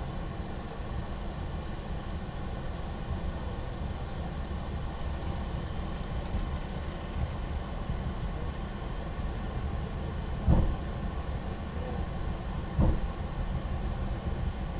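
Steady low rumble in a Boeing 737-800 cockpit as the airliner rolls slowly along the runway after landing, with two short thumps about ten and thirteen seconds in.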